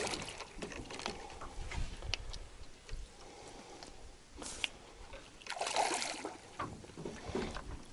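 Water sloshing and splashing as a hooked carp is played in close beside a boat. There are two louder splashes, one about four and a half seconds in and a longer one around six seconds.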